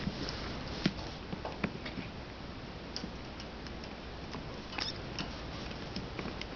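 Young kittens playing on a tile floor: scattered light taps and scuffles of small paws, irregular, with a sharper tap about a second in and a short flurry of taps later on.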